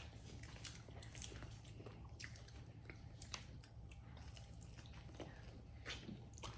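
Faint eating sounds: scattered small clicks and smacks of chewing and biting into food such as corn on the cob and seafood.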